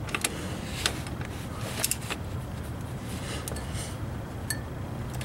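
A few scattered sharp clicks and light metallic taps over a steady low hum. There is no cranking: the Crown Victoria's starter does not turn the engine.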